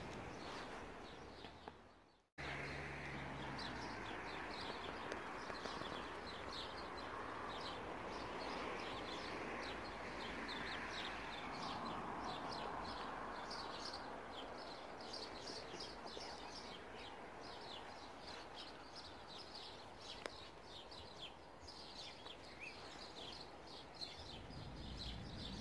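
Small birds chirping busily, many quick high chirps one after another, over a steady outdoor hiss; the sound briefly drops out about two seconds in.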